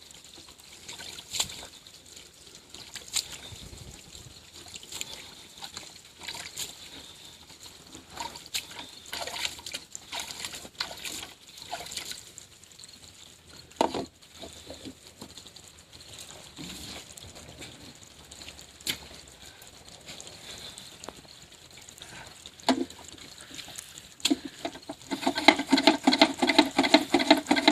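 Water trickling and dripping, with scattered clicks and knocks of parts being handled. About 25 seconds in, a loud, fast, even rattling buzz starts and keeps going.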